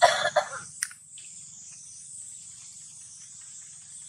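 A short vocal sound in the first half second, then a single sharp click just under a second in, over a steady high-pitched insect drone that continues through the rest.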